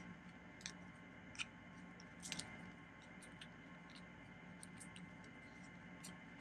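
Near silence with a few faint clicks of paper handling in the first half, as backing papers are peeled off foam adhesive dimensionals on a cardstock panel. A faint steady hum lies under it.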